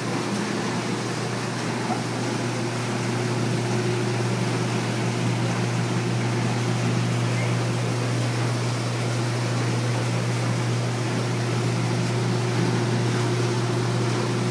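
Potato washing machine running: a steady electric-motor hum with an even rushing, whirring noise from the machine over it.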